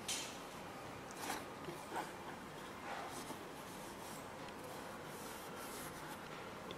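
Hands handling and turning a canvas sneaker: a few faint rustles and brushing sounds in the first three seconds, then only a low steady hiss.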